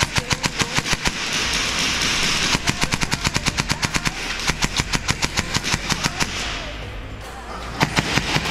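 Airsoft electric gun firing full-auto bursts: four fast strings of sharp shots with short pauses between them, the last starting near the end.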